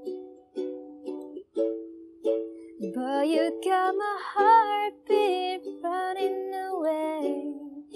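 Ukulele strumming chords, about two strums a second; about three seconds in, a voice comes in singing over it, sliding between held notes.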